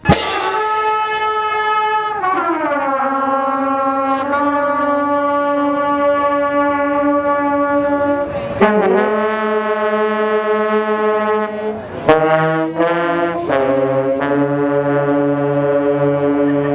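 Brass music: long held chords that change every few seconds, sliding down in pitch about two seconds in and moving to new chords about eight and a half and twelve seconds in.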